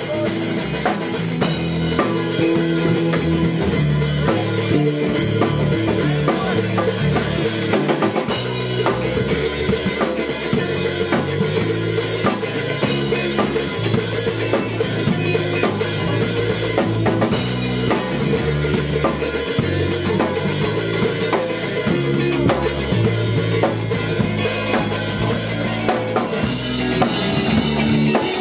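A small band playing live, with a drum kit (bass drum and snare) keeping a steady beat under pitched instruments.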